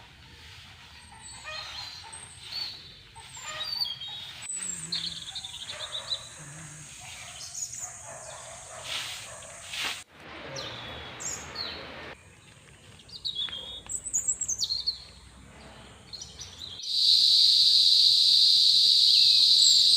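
Birds chirping and calling in short, varied notes. About seventeen seconds in it cuts abruptly to a loud, steady, high-pitched trill of crickets.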